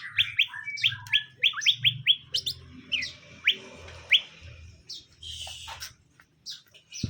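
Green leafbird (cucak ijo) calling: a fast run of short, sharp upward-sweeping notes, about four a second, thinning out and stopping a little past four seconds in.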